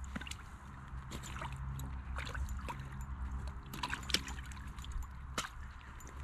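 Faint splashing and trickling of water with scattered small clicks, as a big bass on a light ice-fishing line is fought up through the ice hole, over a steady low rumble.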